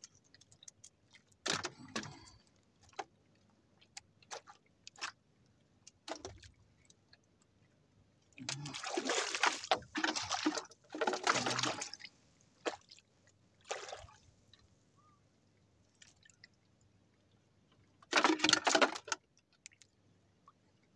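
Water sloshing and splashing against a small boat in short bursts of about a second each, four times, after a run of scattered small clicks and knocks from handling the fishing line and tackle.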